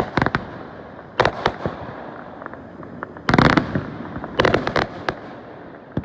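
Fireworks going off: a run of sharp bangs and short crackling bursts at uneven intervals, the loudest and longest cluster a little past halfway.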